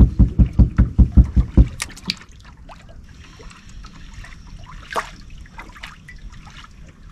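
Water slapping against a boat hull in quick, regular low thumps, about five a second, as the boat moves. The slapping stops about two seconds in, leaving gentle lapping with a few light clicks.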